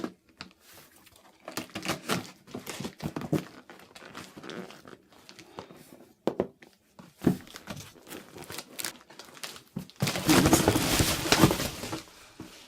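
A cardboard box being cut and torn open with scissors: scattered snipping, rustling and crinkling, with a louder stretch of tearing and rustling for about two seconds near the end.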